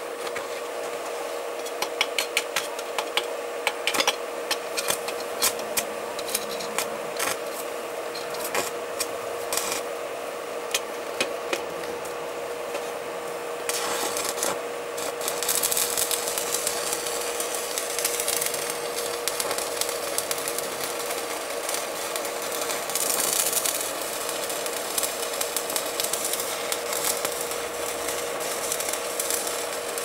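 WAGO push-in connector joining copper to aluminium wire under a high test current, over a steady electrical hum. Irregular crackling clicks grow into a dense sizzling hiss about halfway through: the contact is overheating and burning, to the point of smoking.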